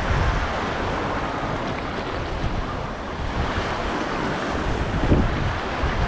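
Sea waves washing on the shore, with wind buffeting the microphone in low gusts, strongest about five seconds in.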